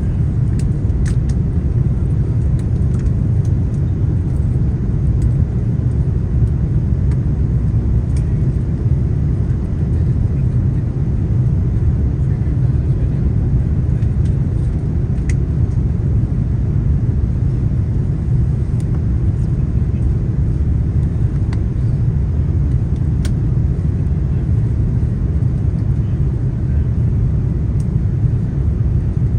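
Steady low rumble of engine and airflow noise inside the cabin of an Airbus A330-300 airliner descending on its landing approach, with a few faint clicks.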